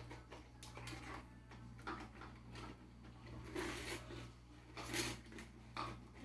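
Scattered scrapes, taps and rustles from a cat scuffling with a crab, the loudest about three and a half seconds and five seconds in, over a low steady hum.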